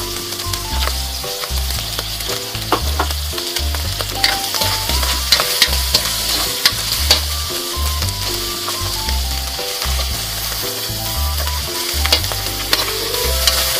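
Vegetables and tuna sizzling in oil in a metal wok while a metal spatula stirs and scrapes them, with frequent sharp clicks of the spatula on the pan. Background music with a repeating bass beat plays underneath.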